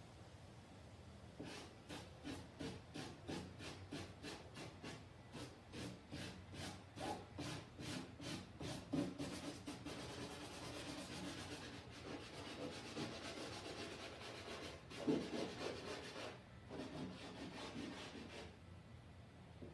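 Pencil hatching strokes scratching back and forth across a large drawing board, about three or four quick strokes a second, merging into steadier continuous shading in the middle. There is a single louder knock about 15 seconds in.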